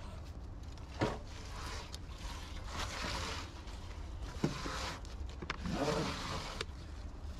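Steady low hum of a fishing boat's machinery, with a sharp knock about a second in and another near the middle, and short stretches of scraping, splashing noise from handling on deck.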